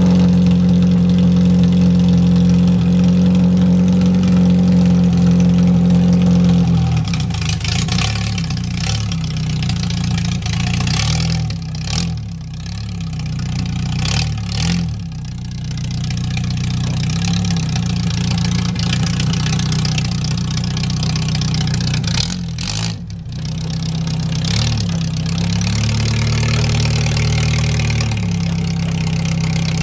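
Mustang demolition derby car's engine heard from inside the stripped cabin: a steady idle for the first several seconds, then uneven running as the car is driven, its pitch rising and falling, with a higher held rev near the end. A few brief bursts of hiss come and go about midway.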